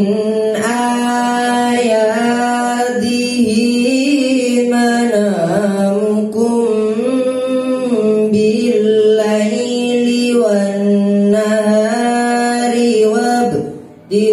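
A single voice chanting a long, slow melodic line with held, wavering, ornamented notes, in the style of Qur'an recitation (tilawah). The phrase breaks off briefly near the end.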